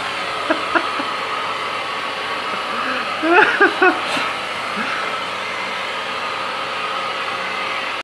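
A vacuum cleaner running steadily, a rushing noise with a constant whine. A few short vocal sounds break in briefly about three and a half seconds in.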